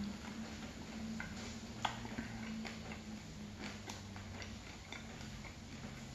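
Close-up chewing of hot-chocolate-soaked bread with the mouth closed: soft, wet mouth sounds with a few scattered small clicks.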